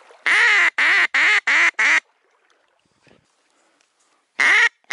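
Duck-style quacking: five loud quacks in a quick, even run, each falling in pitch, then two more near the end.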